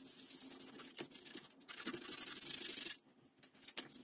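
A cloth rag rubbed back and forth over a sheet of vegetable-tanned leather, a scratchy rubbing that turns faster and louder about two seconds in, then stops about three seconds in.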